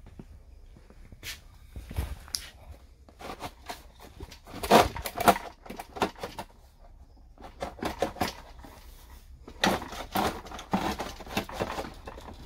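Handling noise from a Stihl MS 661 chainsaw's plastic top cover being unlatched and lifted off to bare the air filter: several clusters of knocks, clicks and plastic rattling, with short quiet gaps between them.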